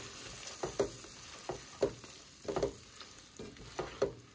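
Burbot chunks sizzling in butter in a metal pot on a gas camping stove, with metal tongs clicking and scraping against the pot again and again as the fish is stirred.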